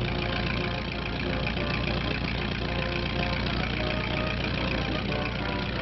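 Engine idling steadily with an even low pulse.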